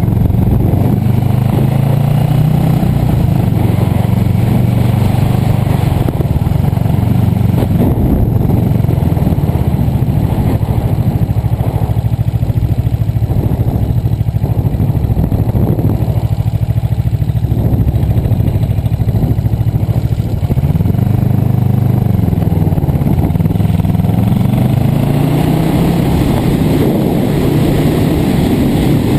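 Freshly rebuilt 1978 Yamaha XS400's air-cooled 392 cc parallel-twin engine running under way, heard from the rider's seat. The engine note rises within the first few seconds and holds fairly steady, then drops about two-thirds of the way in and climbs again toward the end as the rider works the throttle.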